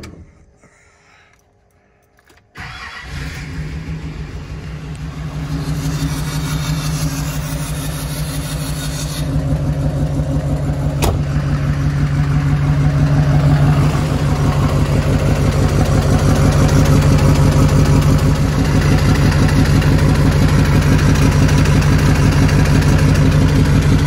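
Duramax turbo-diesel engine starting about two and a half seconds in, then running at idle, growing louder about nine seconds in. The engine has been blowing white smoke and down on power, and a diesel mechanic judging this running sound took it for one dead cylinder: a blown engine.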